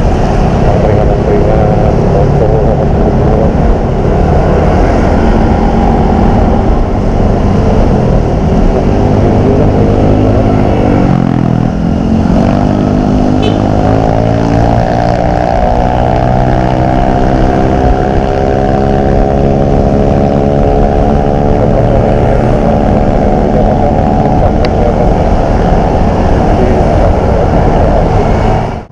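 Riding a Yamaha NMAX 155 scooter on a wet road: a steady rush of wind and tyre noise on the microphone, with engine hum underneath. About eleven seconds in, the engine note dips and then climbs slowly in pitch as the scooter gathers speed.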